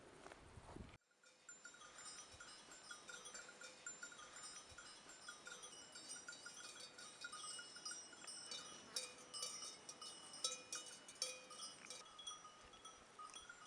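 Bells on a grazing flock of sheep, faint and irregular, several overlapping tones clinking and ringing as the animals move. The bells start about a second in and are busiest near the end.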